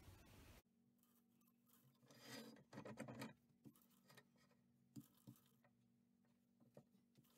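Near silence: faint rubbing and a few light knocks from handling at the stopped lathe, the rubbing about two to three seconds in and the knocks scattered later.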